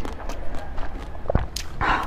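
Close-miked eating: biting and chewing an orange ball of food pulled off a wooden skewer, with soft wet mouth clicks. There is a low thump just over a second in and a louder bite near the end.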